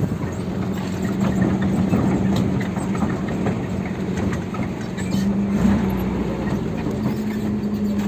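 A motor vehicle's engine running at a steady speed: a constant low hum over travel noise.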